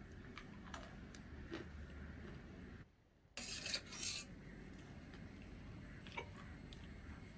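Faint clinks and scrapes of a metal spoon against a stainless steel pot as food is scooped out, with a short louder scrape just after a brief gap about three seconds in.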